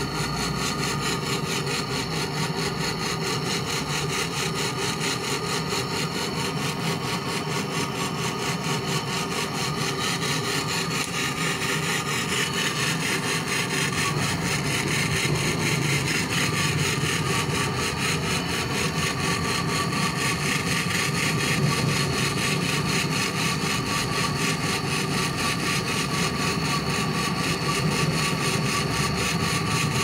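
Gas brazing torch flame hissing steadily as it heats a copper refrigerant tube joint on a refrigerator compressor's stub for brazing.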